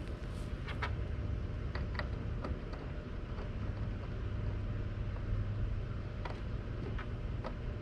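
Scattered light clicks and taps of sink and plumbing parts being handled and fitted together, over a steady low hum.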